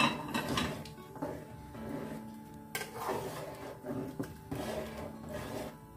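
Background music with steady held notes, over a metal ladle scraping and clinking against a stainless steel cooking pot as it is stirred, a few separate knocks spread through.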